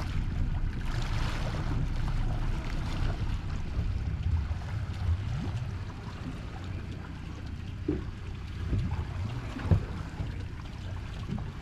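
Suzuki outboard motor running at low speed, with water washing at the stern and wind buffeting the microphone. A brief thump comes near the end.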